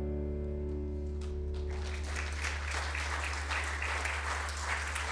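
The worship band's last held chord fades out. From about two seconds in, the congregation applauds while a low sustained note carries on underneath.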